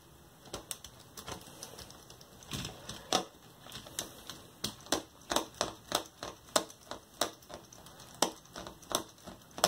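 Lego Technic plastic gear train clicking as a knob is turned by hand to wind a string winch, retracting the forks on their scissor linkage. The clicks are sharp and come at about two to three a second, steadier after the first few seconds.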